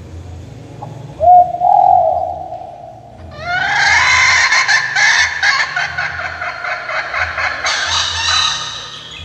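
Recorded chicken calls played through a bird-caller MP3 speaker: a short rising note about a second in, then from about three seconds a long run of harsh, rapidly pulsed calls, over a faint low pulsing hum.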